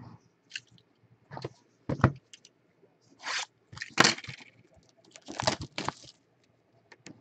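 Cardboard trading-card hobby boxes in plastic wrap being handled and moved: a run of short scrapes, crackles and taps, loudest about four seconds in and again around five and a half seconds in.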